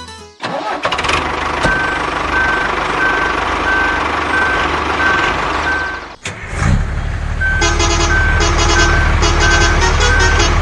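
Truck engine running, with a reversing alarm beeping about every two-thirds of a second. About six seconds in the sound cuts briefly, then the engine returns with the beeping and a second, faster chirping pattern.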